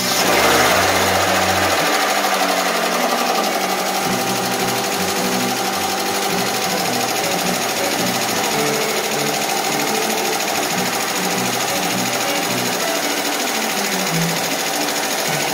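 Honda CR-V 2.0L B20B DOHC four-cylinder engine running just after its first start, with a fast, steady ticking clatter from the valvetrain. The ticking is the sign of valve clearances set too loose, which need readjusting.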